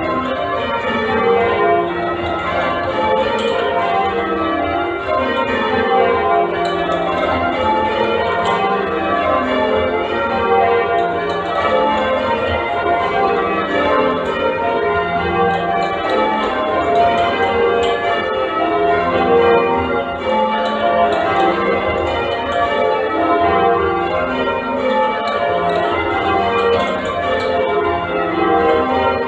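Ring of eight church bells (cast by Mears & Stainbank) being change rung: the bells strike one after another in rows running down from the treble to the tenor, with each change following straight on from the last.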